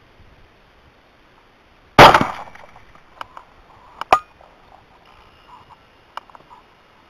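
A single rifle shot about two seconds in, sharp and loud with a short fading tail. Over the next two seconds come several metallic clacks, the last two loud and close together, as the rifle's bolt is worked to chamber another round.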